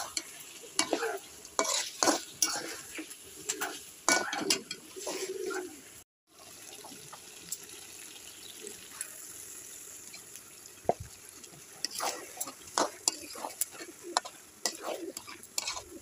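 A spatula scrapes and knocks against a pan while stirring fish-head masala sizzling in hot oil. The sound cuts out briefly about six seconds in. A steadier sizzle with a single low thump follows, then the scraping strokes start again in the last few seconds.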